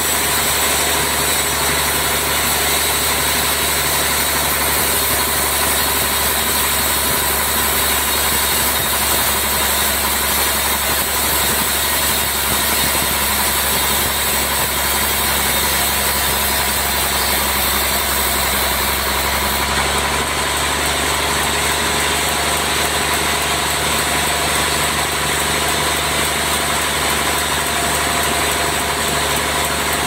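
Vertical band sawmill running steadily, its blade sawing lengthwise through a large trembesi (rain tree) log into slabs. Steady machine hum under the sawing, with the highest hiss dropping a little about two-thirds of the way through.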